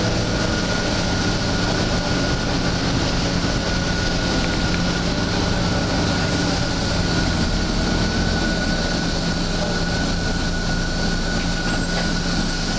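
Volvo B9TL double-decker bus running: a steady drone of engine and road noise with a thin, steady high whine over it.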